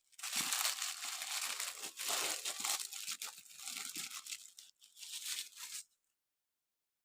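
A Matchbox diecast car's cardboard box being torn open and its packaging crinkled: a run of ripping and rustling that stops abruptly about six seconds in.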